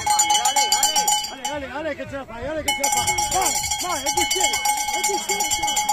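A handheld cowbell shaken fast and steadily, pausing for about a second just after a second in, then clanging again.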